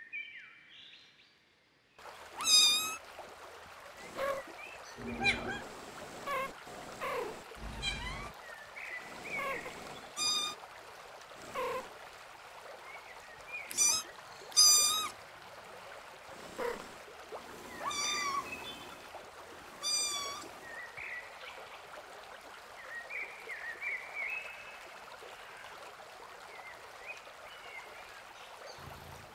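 Animation sound effects of forest ambience: a steady stream-like hiss with scattered short bird chirps. Over it come a handful of loud, high cat mews, each brief, about six in all between roughly 2 and 20 s in.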